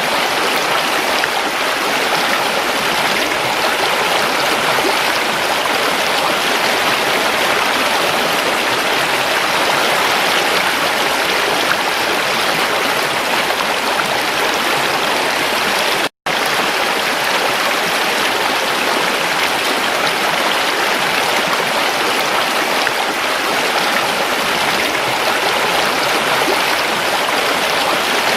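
Creek water running steadily, an unbroken rushing of flowing water. A little past halfway it cuts to silence for a split second, then resumes.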